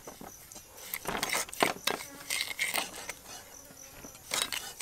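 Metal spoon clicking and scraping against a glass bowl while white seasoning granules are poured over fried tofu cubes and mixed in, in scattered irregular strokes.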